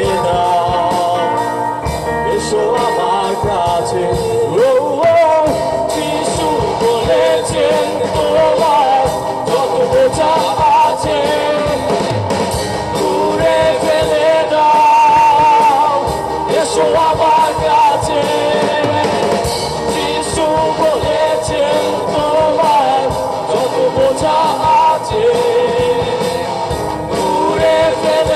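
Live band playing a Bangla Christian worship song: a male singer over drums, electric guitars and keyboard.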